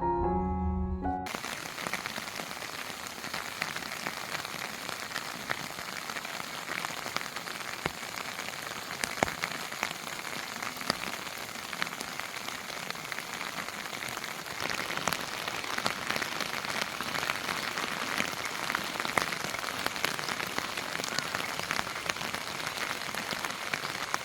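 Steady rain falling, with scattered single drops ticking now and then. Background music stops about a second in.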